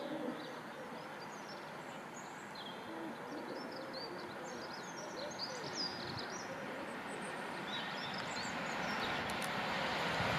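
Small birds chirping over the rushing hiss of a steam locomotive approaching at speed, the noise growing louder over the last few seconds: the A1 Pacific 60163 Tornado coming in with its safety valves blowing off.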